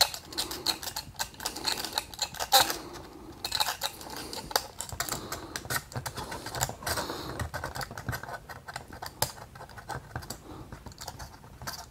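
A sharp blade scraping the green solder mask off a dishwasher control board's copper trace: a quick, irregular run of small scratchy clicks and strokes. The mask is being cleared to bare the copper for a jumper wire where the relay pad has burned away.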